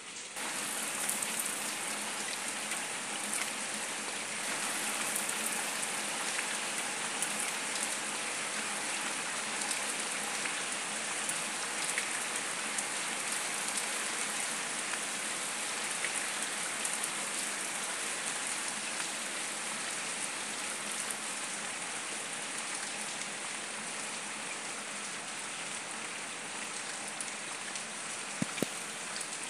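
Heavy rain falling on concrete paving stones and the leaves of a shrub: a dense, steady hiss that swells about half a second in. Two brief knocks near the end.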